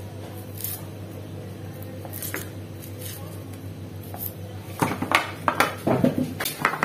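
Faint clicks of a kitchen knife as shallots are peeled and sliced by hand, over a steady low hum. In the last two seconds comes a run of louder clattering knocks as the knife is set down on a plastic box and shallots are handled on a plate.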